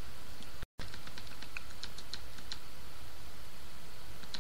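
Computer keyboard typing: a scattered run of light keystroke clicks in the first half and one more near the end, over a steady low hum. The audio cuts out for a split second under a second in.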